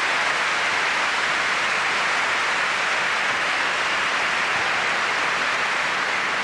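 Large crowd applauding steadily, an even wash of many hands clapping.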